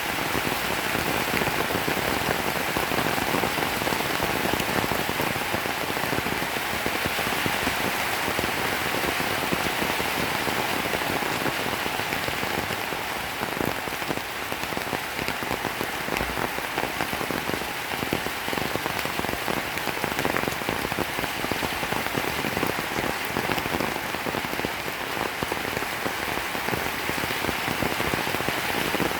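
Steady rain falling, a dense even hiss of many drops striking a surface.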